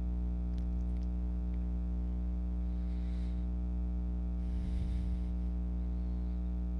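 Steady low electrical hum with a ladder of overtones, with a few faint clicks and a brief faint rustle about four and a half seconds in.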